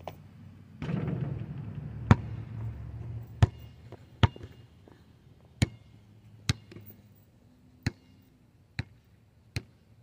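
Basketball bouncing on an asphalt court: sharp smacks at an uneven pace of roughly one a second, nine in all. A low rumbling noise runs under the first few for about three seconds, starting about a second in.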